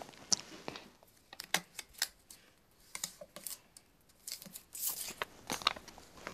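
A sheet of paper being handled and folded by hand on a wooden table: a string of short paper crackles and rustles, with a longer sliding swipe of the crease about five seconds in.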